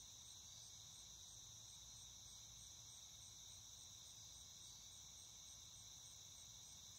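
Faint, steady high-pitched trilling of crickets, with a light even pulsing and a low hum beneath.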